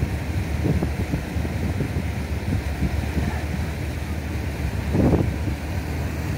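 Wind buffeting the microphone over the steady low rumble of a moving tender boat's engine and the sea around it, with stronger gusts about a second in and near five seconds.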